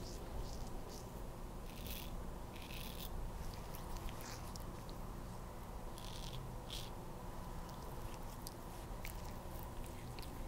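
Soluna safety razor scraping lathered stubble on the neck in several short strokes, over a steady low hum.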